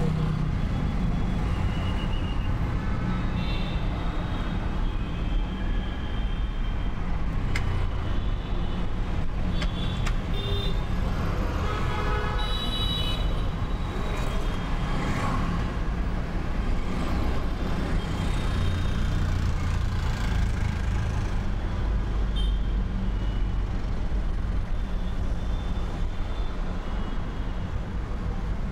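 A steady low background rumble, with a few faint clicks and taps from hand tools loosening the bolts of the automatic clutch actuator assembly.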